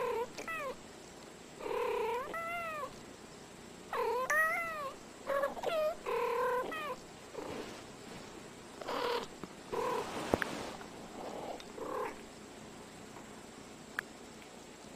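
Domestic cats chirping and trilling in short meows with rising-and-falling pitch, call after call, through the first twelve seconds, then falling quiet. A sharp click sounds about ten seconds in.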